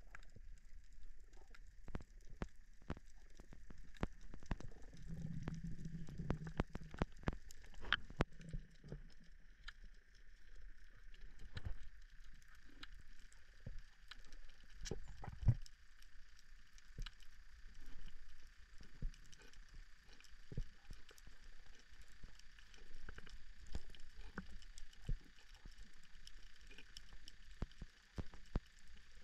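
Underwater coral-reef ambience picked up by a diving camera: irregular sharp clicks and crackles, typical of snapping shrimp, over a low rumble and a faint steady hum.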